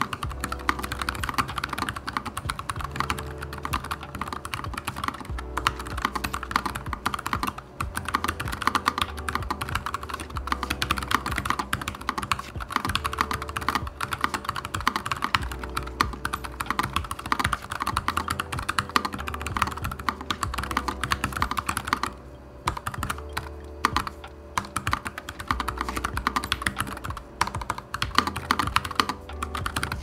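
Continuous fast typing on a NuPhy Air75 low-profile keyboard with stock, unlubricated Gateron Red low-profile linear switches: a dense, steady stream of key clacks, with a brief pause about two-thirds of the way through.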